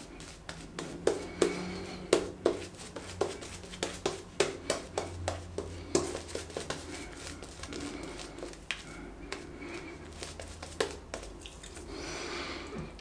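Shaving brush lathering Cella shaving cream over stubble, a run of quick, irregular strokes of bristles through wet lather, a few a second.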